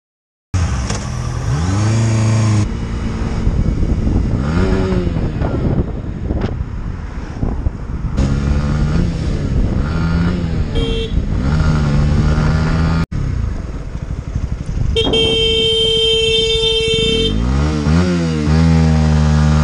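Motorcycle engine revving up and down as the rider rides and changes gear, rising again as the bike accelerates near the end. A vehicle horn toots briefly about eleven seconds in and is held for about two seconds shortly before the end.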